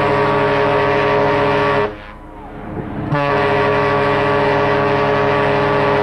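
SS Seabreeze's funnel-mounted steam whistle blowing a long, steady blast that stops about two seconds in, then a second long blast starting about a second later.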